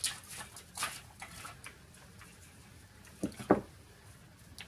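Hands unwrapping and opening a Kinder Surprise chocolate egg: quick crinkles and clicks from the foil and the egg. Two sharp, loud clicks come about three and a half seconds in.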